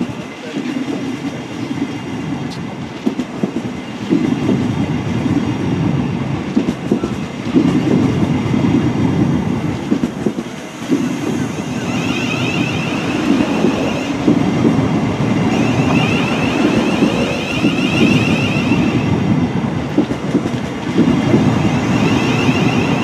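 Thameslink Class 700 electric train pulling slowly out of the platform, with a low rumble and wheel clatter that swells and eases every few seconds. A high whine comes and goes in the second half.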